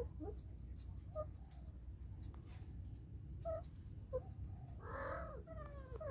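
Domestic cats mating: a few short, faint cries, then about five seconds in a louder call and, near the end, the start of a long yowl.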